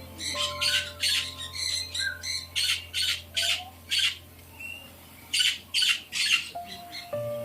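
Birds giving loud, harsh squawks in quick runs of a few calls, with a lull in the middle. Soft background music with held notes runs underneath.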